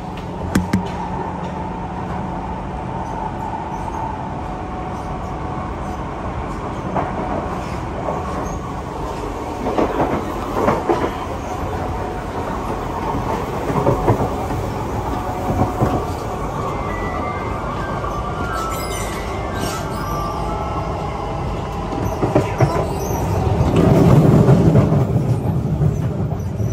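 Siemens C651 metro train running, heard from inside the passenger car: a steady rumble of wheels on rail with a high whine, scattered sharp clicks and knocks, a short run of stepped rising tones about two-thirds through, and a louder rumble near the end.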